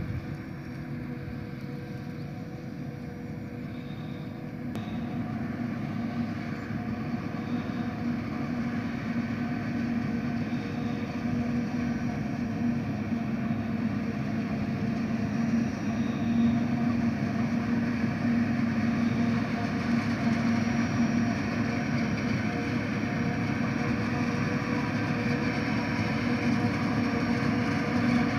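Self-propelled forage harvester chopping maize, with a tractor pulling a silage trailer alongside: a steady drone of diesel engines and the chopping drum with a low hum, growing louder as the machines come closer.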